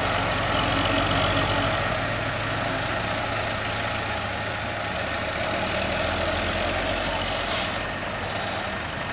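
Heavy diesel truck engine running steadily under load while towing a stalled truck up a grade on a sling. A short hiss comes about seven and a half seconds in.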